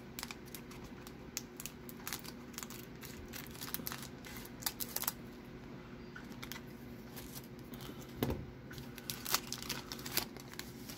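Scissors cutting open a plastic baseball-card pack wrapper, the wrapper crinkling as the cards are handled and pulled out: a run of irregular clicks and crackles over a low steady hum.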